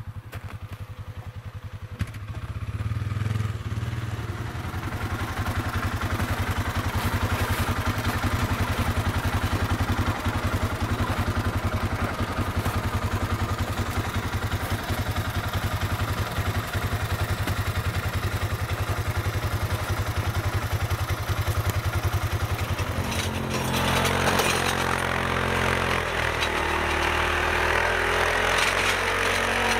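ATV engine running steadily at working speed while towing a ski-mounted trailer through snow. The engine note sets in about two seconds in, and near the end it shifts, with more hiss above it.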